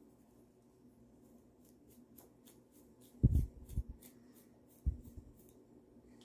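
Fine-tooth plastic comb scratching across a scalp through short coily hair in quick repeated strokes, about five a second. Dull low thumps come a little past three seconds and again near five seconds in, louder than the scratching.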